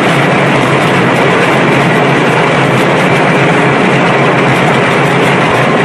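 Rotary well-drilling rig machinery running, a loud steady noise.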